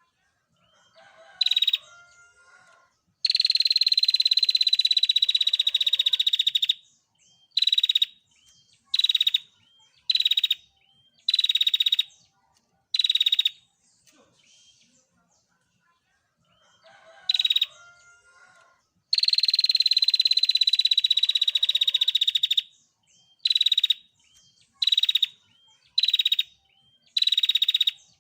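Female prinia (prenjak) calling: a long buzzy rattling trill of about three and a half seconds that falls slightly in pitch, then a string of short sharp notes about a second apart, the whole sequence given twice. This is the female's rattling 'ngetir' call, used to call a male.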